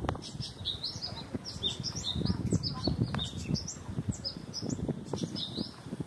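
Small birds chirping over and over, short high chirps in quick succession, several a second, over low irregular thumps and rustling close by.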